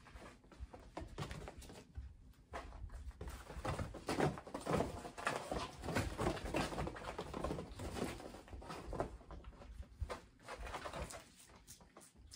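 Kittens scampering and wrestling on the blanket floor of a fabric playpen: an irregular patter and scuffling of small paws and claws on cloth, busiest in the middle.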